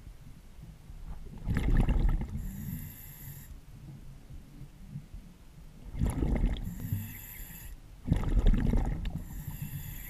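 Scuba diver breathing underwater through a regulator: three breaths, each a loud rush of exhaled bubbles followed by a hissing inhale through the demand valve.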